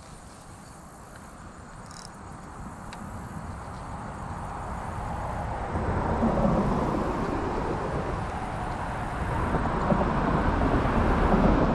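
A road vehicle approaching, a rush of tyre and engine noise that grows steadily louder.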